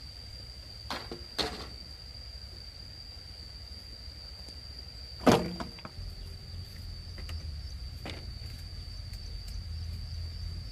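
A few sharp knocks, the loudest about five seconds in, over a steady high-pitched insect drone.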